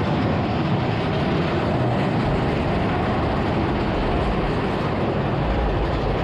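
Big Thunder Mountain Railroad mine-train coaster cars running steadily along the track, a continuous rumble with no breaks, the low end growing heavier near the end.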